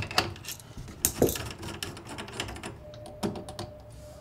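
Irregular light clicks and knocks of a flow meter being unscrewed and lifted out of an underfloor-heating manifold, thinning out towards the end.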